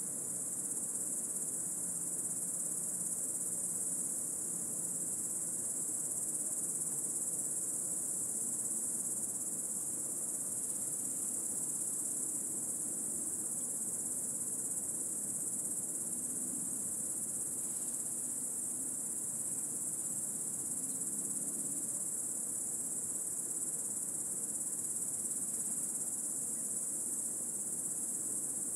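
A chorus of cicadas singing in one continuous, shrill, high-pitched drone that holds steady without pauses.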